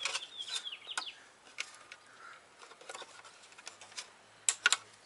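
Small birds chirping in short falling notes, with a few sharp clicks. The loudest is a quick cluster of two or three clicks near the end.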